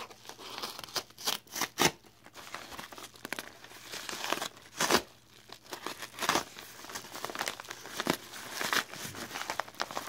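Kraft paper mailer envelope being torn open and crumpled by hand: irregular rustling and crinkling, broken by several sharp rips, the loudest about two and five seconds in.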